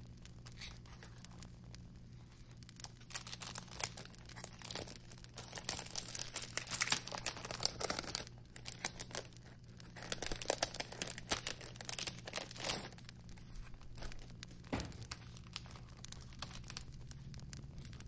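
Crinkling and tearing of packaging being handled and opened, in two busy spells of rustling with quieter handling between.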